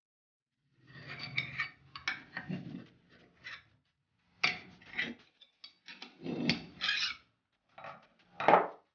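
Metal parts scraping, rubbing and clinking in several irregular bouts as a retainer ring and grommet assembly is worked into the port of a hydraulic accumulator shell with the handle of an adjustable wrench.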